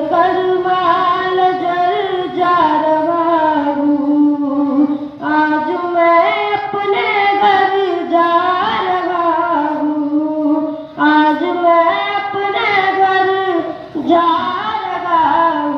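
A single high voice singing a slow Hindi/Urdu devotional song in long, ornamented phrases, with short breaks for breath about every four to five seconds.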